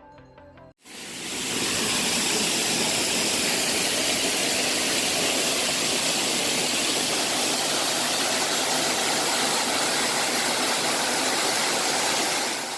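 Waterfall: a steady rush of falling water, coming in about a second in and holding level throughout.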